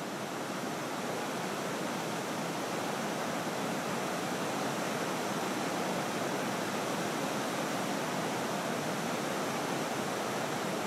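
Waterfall rushing steadily: an even hiss of falling water with no rhythm or break.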